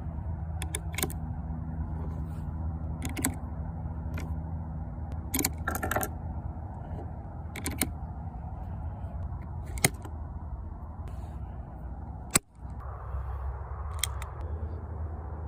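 Sharp metallic clicks and rattles of a Lebel Modèle 1892 revolver's mechanism being handled, coming one at a time at irregular intervals over a steady low hum, with the sharpest click about twelve seconds in.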